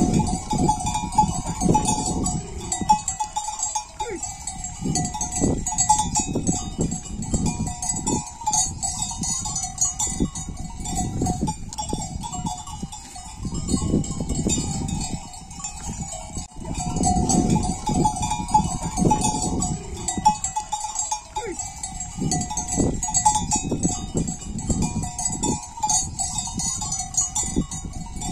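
A small metal bell on a donkey's neck strap jingles and clanks irregularly as the donkey eats greens from a hand. Low, uneven thumps and rustles run beneath it.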